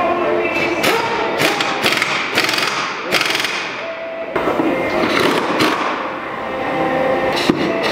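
Hand tools knocking and clinking against the metal of a car's rear suspension and hub as a coilover strut is bolted in, a string of sharp irregular knocks, some ringing briefly.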